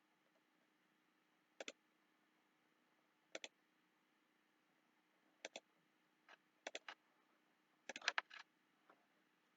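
Computer mouse buttons clicking: short sharp clicks, mostly in quick pairs, a second or two apart and bunching together near the end, over a faint steady hum.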